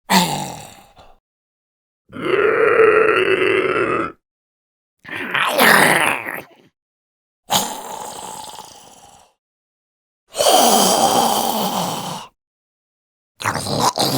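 Homemade zombie sound effects: a person's voice groaning and growling in six separate bursts, each one to two seconds long, with short silences between them. A couple of the bursts start sharply and then trail off.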